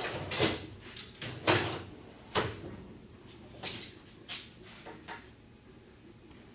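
Scattered sharp knocks and clunks of someone rummaging for a tool: the loudest few come in the first two and a half seconds, then fainter, sparser ones until about five seconds in.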